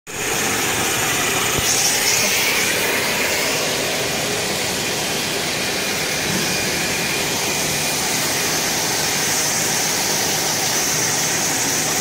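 Plastic corrugated hose extrusion line running: a steady mechanical hum and hiss from its motors, with a steady high whine on top.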